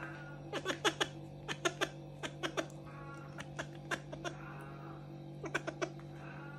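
Background music with clusters of sharp clicks over a steady low drone, with a few faint meows from an Oriental cat.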